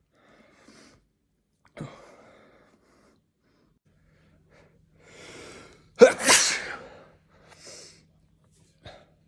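A person sneezing once, loudly, about six seconds in, with a drawn-in breath just before it.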